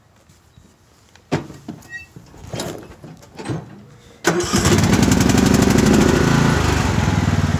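Columbia lawn tractor engine starting suddenly about four seconds in and running steadily with a fast, even beat, after a few clunks and knocks.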